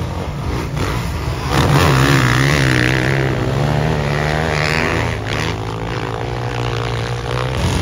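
Motocross bikes racing on a soft sand track, their engines revving up and down repeatedly as the riders power through the whoops. The engines get louder about a second and a half in.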